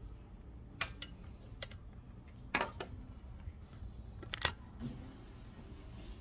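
A handful of sharp clicks and knocks from a phone being handled and set down on a table, over a low steady hum.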